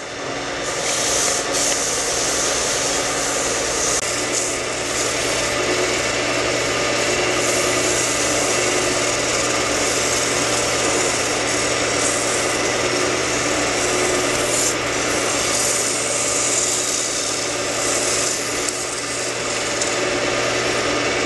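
Lathe running with abrasive paper held against the spinning turned workpiece: a continuous sanding hiss over the motor's steady low hum.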